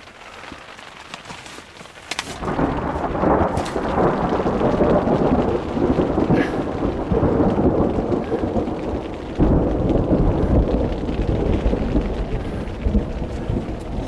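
A heavy downpour of rain drumming on the tent canvas starts suddenly about two seconds in and keeps up hard. Thunder rumbles with it, and a deeper rumble comes in at about nine seconds.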